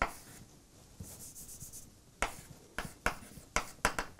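Chalk writing on a blackboard: a sharp tap as the chalk meets the board, a soft scratchy stroke about a second in, then a quick run of taps and strokes over the last two seconds.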